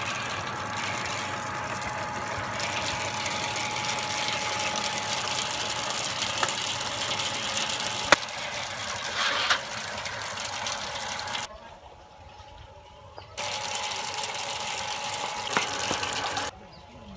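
Steady rush of running water, cutting off suddenly for about two seconds near the middle and again shortly before the end.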